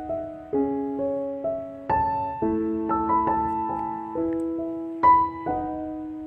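Slow background piano music, a new note or chord every half second or so, each struck and left to ring and fade.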